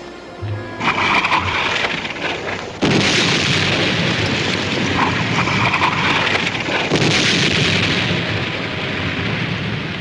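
War-film battle sound effects: explosions in a continuous rush of noise that jumps suddenly louder about three seconds in, holds, and eases near the end.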